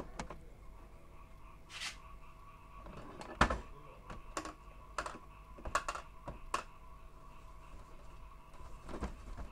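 Scattered light clicks and knocks of hands handling plastic parts inside an open inkjet printer, with a brief rub about two seconds in. The loudest knock comes about three and a half seconds in, and a quick run of clicks follows between five and six and a half seconds.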